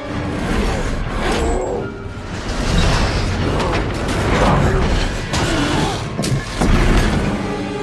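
Action-film sound mix: a fighter jet being torn apart, with booms and several sharp metallic crashes over the music score.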